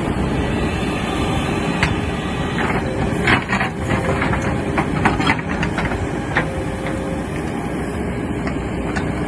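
Backhoe's diesel engine running under load while a multi-ripper bucket's teeth scrape and break through rock, with sharp knocks and grinding strikes, most of them from about three to five and a half seconds in.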